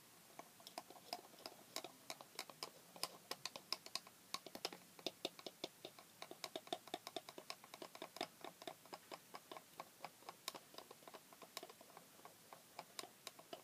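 A teaspoon stirring a milkshake in a small cup, tapping against the cup's sides in a faint, rapid, uneven run of light clicks.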